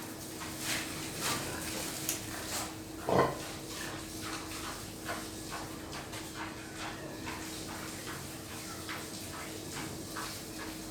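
Pigs in a pen grunting and squealing in many short calls, the loudest about three seconds in, over a steady hum.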